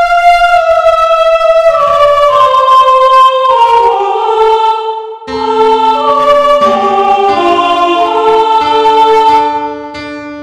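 Background music: a slow melody of long held notes, several sounding together, changing chord every second or so, with a brief dip a little past halfway and a fade near the end.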